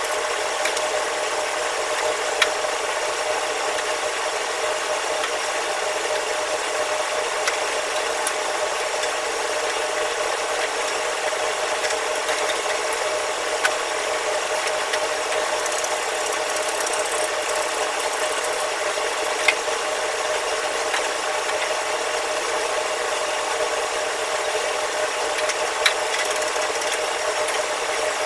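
Steady machine whir with a constant hum in a commercial kitchen, with scattered sharp clicks and knocks as wok-range burner parts are scrubbed and handled.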